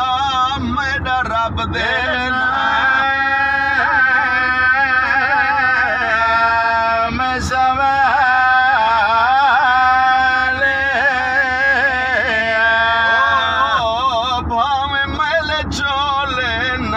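A man's voice sings a Punjabi mourning recitation unaccompanied, drawing out long, wavering, ornamented notes. A car's steady road noise runs underneath.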